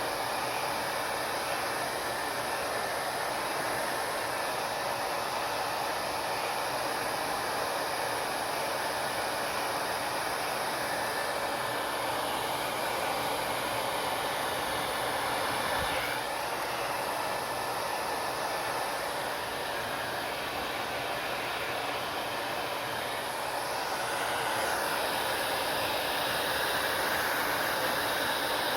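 Hair dryer running with a steady blowing rush, growing a little louder and brighter toward the end.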